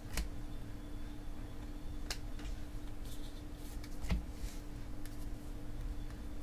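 Baseball trading cards being flipped through one by one in the hands, the card stock sliding and rustling, with three soft clicks about two seconds apart. A faint steady hum runs underneath.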